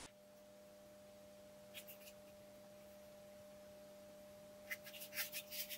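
Near-quiet room with a steady faint hum, broken by a few light scratchy rustles from handling a battery pack: once about two seconds in and a quick cluster near the end.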